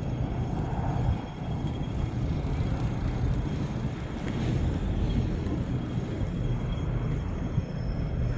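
Outdoor waterfront ambience: a steady low rumble with faint high, thin steady tones above it.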